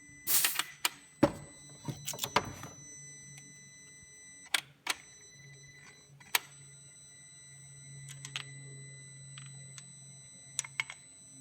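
Scattered sharp clicks and knocks of hand tools and compression-tester fittings being handled on an engine, several close together in the first couple of seconds and a few single ones later, over a faint steady hum.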